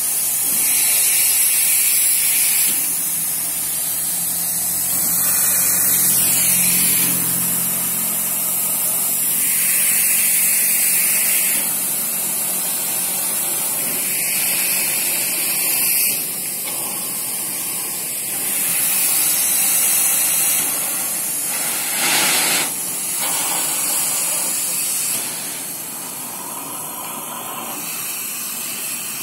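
Steam locomotive standing still and hissing out steam in repeated surges every few seconds, with a low steady hum under the first half.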